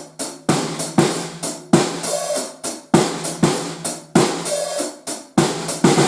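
Acoustic drum kit played in a steady groove, with kick, snare and cymbal hits about twice a second over a steady low drum ring. The hits come quicker near the end in a short fill.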